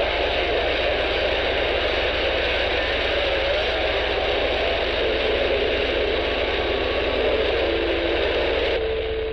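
Intek H-520 Plus handheld CB radio receiving on channel 19 AM: a steady hiss of static with faint wavering whistles underneath, the sound of an open channel during skip conditions. The hiss thins out suddenly just before the end.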